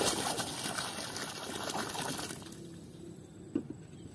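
Water poured from a cut-off plastic bottle splashing into open water. The splashing stops about two and a half seconds in, and a single short knock follows near the end.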